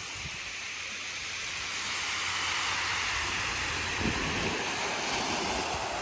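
Small waves washing up and back over a shingle beach of pebbles: a steady surf hiss that grows louder about two seconds in.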